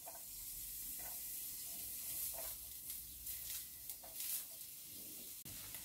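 Chopped garlic frying gently in olive oil in a non-stick pan at medium heat: a faint, steady sizzle, with a few soft scrapes of a silicone spatula stirring it.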